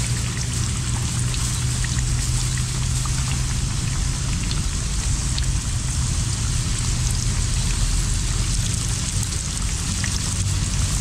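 Fish fillets frying in hot oil in a pan on a camping stove: a steady sizzle with many small crackles, over a steady low rumble.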